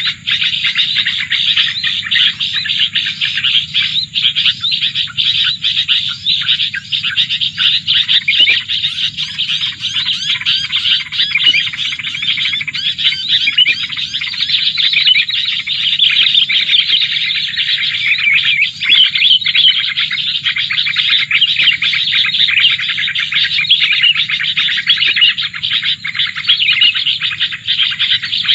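Dense, unbroken chirping and twittering of small birds, taken here for prinias (prenjak sawah) calling to the trap. A steady low rumble runs underneath.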